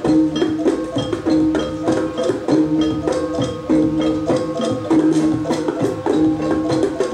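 Live kuda kepang ensemble music: a hand-played double-headed barrel drum keeps a fast, even beat of strokes, with gongs and small gong-chimes ringing held metallic notes over it.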